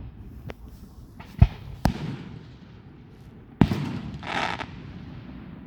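Fireworks going off: a faint pop, then three loud bangs spread over the next few seconds, followed by a short hissing burst.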